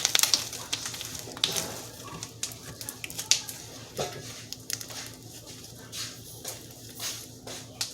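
Sticky glitter slime being worked by hand, giving off irregular sticky clicks and small pops, several a second.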